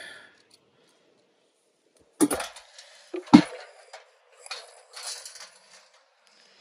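Two sharp metal clanks about a second apart, the second louder, as hand tools are set down on a steel work surface, followed by softer scraping and rummaging.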